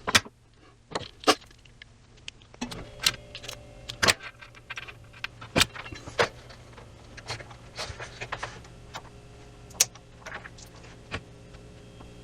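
Irregular sharp metallic clicks and clacks of a hand tool and small metal parts being handled, as wire eyelet terminals are crimped onto the leads.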